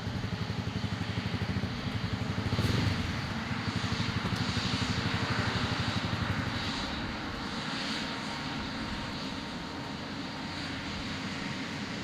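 Jet airliner's engines at takeoff power: a loud, dense rush with a pulsing low rumble that eases slightly after about seven seconds.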